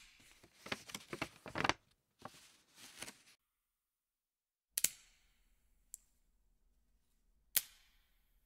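A pencil being shaved with a utility knife blade: a quick run of short scraping strokes, then a few more. After a pause come a couple of sharp knocks and a small click.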